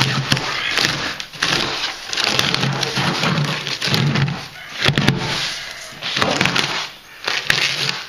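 Plastic-bagged fibreglass wall insulation batting being ripped out of a bus wall cavity: plastic crinkling and tearing in irregular bursts with short pauses between pulls.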